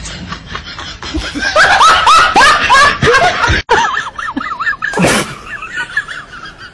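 Loud, high-pitched laughter in rapid repeated bursts, strongest in the middle. A thin wavering squeal carries on toward the end.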